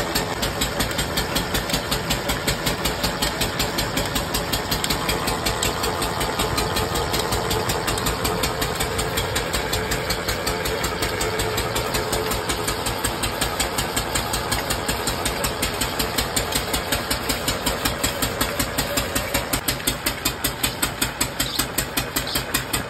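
Noodle-making machine with a belt-driven pulley running steadily, its drive beating in an even rhythm of a few beats a second.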